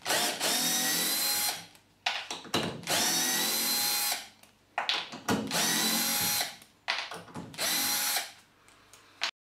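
Milwaukee 12 V cordless drill/driver running in reverse, backing screws out of an oak block: four separate runs of the motor, each winding up briefly in pitch, holding a steady whine for one to one and a half seconds, then cutting off. Light clicks and taps come between the runs as the bit is moved to the next screw.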